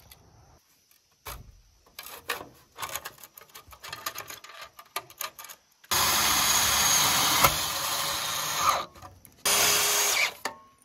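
DeWalt 20V cordless drill fastening a steel joist hanger, running steadily for about three seconds, then again briefly near the end. Before that come scattered clicks and knocks of metal and tool handling.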